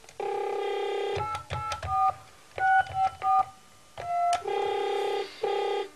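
Landline desk telephone: a steady dial tone, then about nine short touch-tone keypad beeps as a number is dialled, then the steady tone again near the end.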